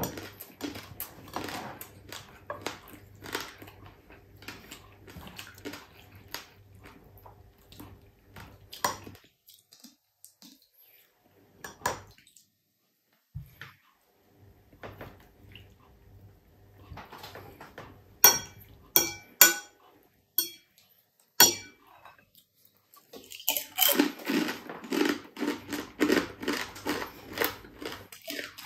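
A spoon and cutlery clink against a plate and glass bowls as food is served. A few sharp, loud clinks come a little past halfway. Over the last several seconds there is close, crunchy chewing of crispy, flour-free, deep-fried boneless chicken feet (chicharon).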